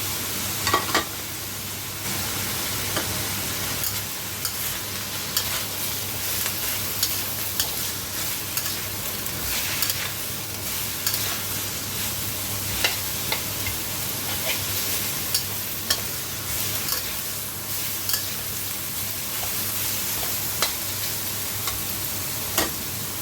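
Beef and cabbage sizzling in hot oil as they are stir-fried, with a steady hiss and frequent sharp clacks and scrapes of the spatula against the pan at irregular moments.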